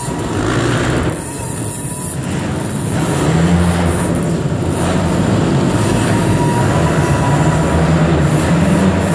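Engines of small youth motocross bikes and quad bikes running and revving around a dirt track, a continuous mechanical drone that grows louder about three seconds in.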